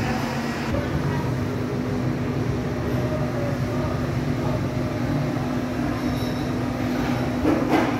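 Steady mechanical drone with a constant low hum running through it, like a fan or cooling unit, and a brief louder rush of noise near the end.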